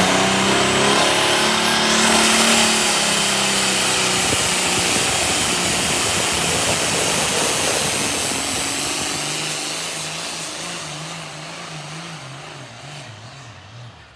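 Diesel pulling tractor at full throttle dragging a weight-transfer sled, its engine running loud and hard. The sound fades steadily as it pulls away down the track, and near the end the engine note wavers up and down.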